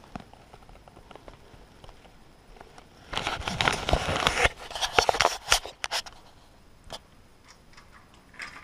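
Hands working the plastic carrier parts of a vertical blind headrail: small plastic clicks and crackles, a louder stretch of rustling and scraping about three seconds in, then a few sharp clicks around five seconds.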